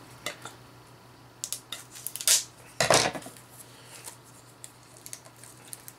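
Scissors and hands cutting and pulling the plastic shrink-wrap off a small metal collectible canister: a scatter of short scrapes, snips and clicks, the loudest about three seconds in.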